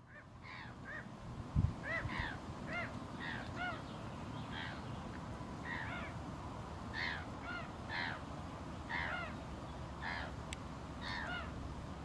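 Gulls calling over and over: a long series of harsh, down-slurred calls, two or three a second. A low thump sounds about one and a half seconds in.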